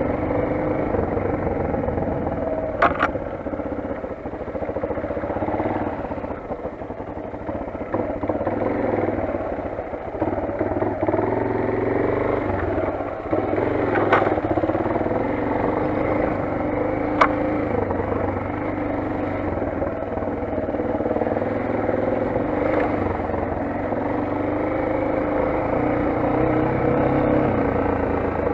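Motoland XR 250 enduro motorcycle's single-cylinder engine running while riding, its pitch rising and falling with the throttle. A few sharp knocks are heard over it.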